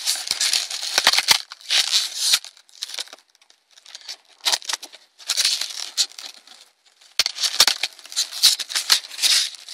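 Foam packaging being handled and pried apart by hand: bursts of scratchy rustling and scraping as the boxed toy is worked out of its foam packing, with a quieter pause in the middle.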